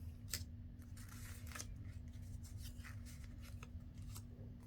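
Paper and card being handled on a craft table: a few sharp light clicks and short rustles over a steady low hum.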